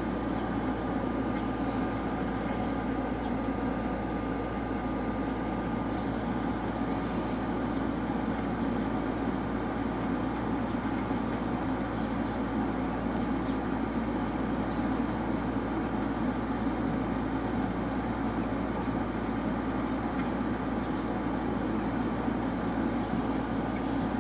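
A steady low droning hum with a faint steady higher tone above it, unchanging in level throughout: the strange noise heard coming from the sky.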